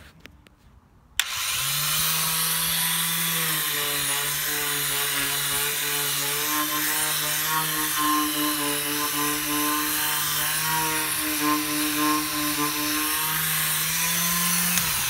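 Drill Master 120-volt orbital hand sander with 150-grit paper running on solid-wood bed slats: a steady motor hum under the rasp of sandpaper scuffing off the top layer of stain. It starts abruptly about a second in. Its hum drops a little in pitch after a few seconds and rises again near the end.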